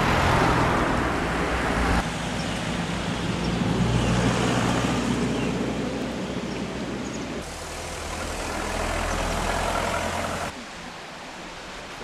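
Road vehicle and traffic noise: a steady rumble and hiss that changes abruptly three times as the clips cut, about two, seven and ten seconds in.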